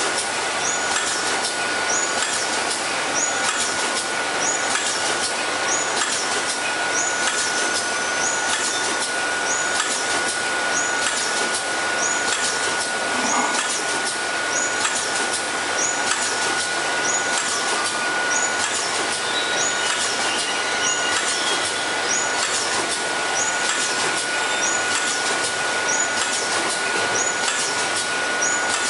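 Multi-track pouch packaging machine (vertical form-fill-seal, four-side seal) running steadily: a constant hiss with a steady high whine, and a short high sound repeating about every second and a quarter as the machine cycles through its pouches.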